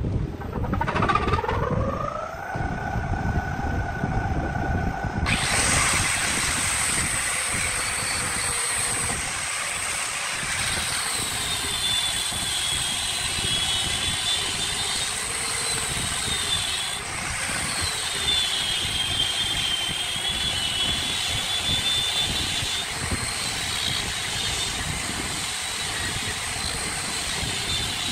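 A power motor spins up with a rising whine about a second in. From about five seconds an angle grinder with a sanding disc sands a wooden vase turning on a lathe: a steady, hissing grind with a high whine that wavers as the disc is pressed and moved along the wood.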